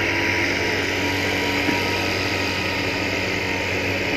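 A machine running steadily: a constant low drone with a thin steady whine and a hiss over it.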